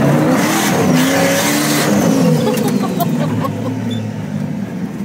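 Turbocharged Hemi V8 in a Ford F100 pickup revving up under throttle and dropping back over the first two seconds or so, with a loud rushing noise during the rev, then running lower and steadier.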